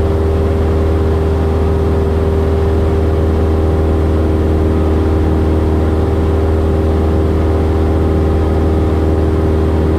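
Cessna 172S's four-cylinder Lycoming engine and propeller in flight, a steady drone with an unchanging hum, heard inside the cabin.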